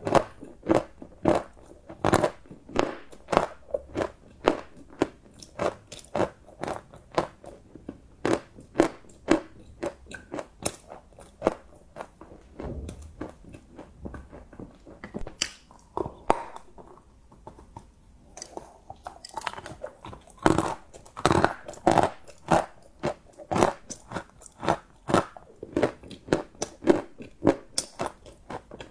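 Close-up eating sounds of crunchy chocolate: rapid sharp crunches as it is bitten and chewed, several a second, easing off to softer, quieter chewing for a few seconds near the middle before the crunching picks up again.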